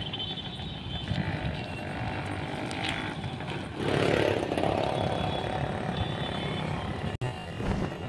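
Outdoor vehicle noise with a motorcycle engine running close by. It gets louder about four seconds in and drops out for an instant just after seven seconds.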